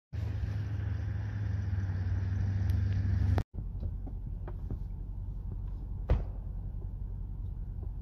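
Vehicle engine idling with a steady low rumble, loud for the first three seconds, then cutting out briefly and going on as a quieter low hum. About six seconds in, a single sharp thud: the SUV's door shutting.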